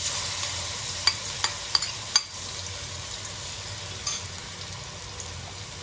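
Pounded chilli and garlic paste sizzling as it fries in hot oil, a steady hiss with a few sharp pops between one and two seconds in and another near four seconds.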